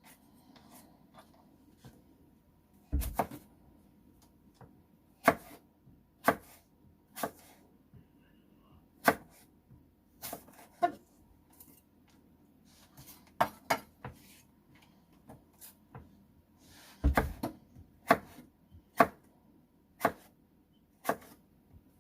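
Kitchen knife slicing an apple thinly on a cutting board: separate sharp knocks of the blade meeting the board at an irregular pace, roughly one a second. Two heavier thumps stand out, a few seconds in and again past the middle.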